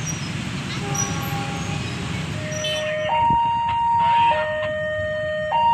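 Railway level-crossing warning alarm: an electronic two-tone signal alternating between a higher and a lower tone, each held about a second, starting about three seconds in. Before it there is a steady low traffic rumble.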